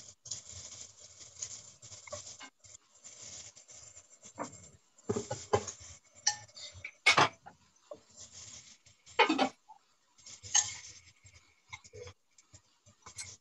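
A metal fork scraping and knocking the last of a marinade out of a mixing bowl into a frying pan of chicken. Irregular bursts of scraping are broken by sharp clinks, the loudest about seven and nine seconds in.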